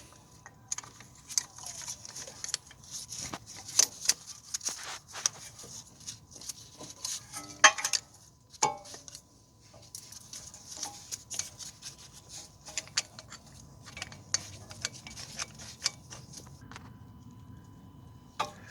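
Irregular metallic clinks and rattles of a brake caliper piston compressor tool being fitted and worked against the caliper piston, with a couple of ringing metal knocks about eight seconds in.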